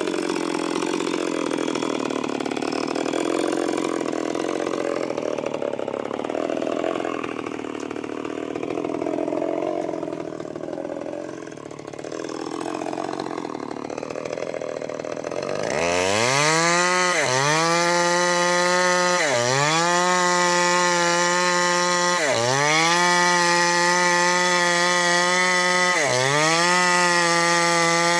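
Eagles 6620 two-stroke chainsaw working in wood, its engine pitch wavering and sagging under load. About sixteen seconds in it revs up to a steady high whine at full throttle, dipping briefly about four times and recovering each time.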